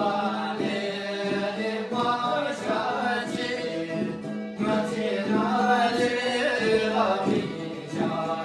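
A Bhutanese traditional dance song sung by a group of voices together, over a steady low held note and a regular beat.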